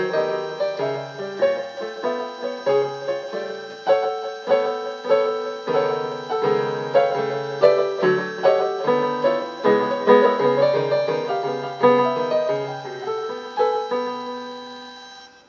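Piano music: a melody of single notes over lower chords, fading out near the end.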